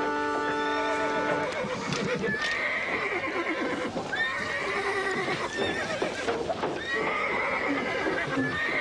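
Cartoon horse whinnying repeatedly in panic as it rears in harness, with hooves striking and clattering on cobblestones.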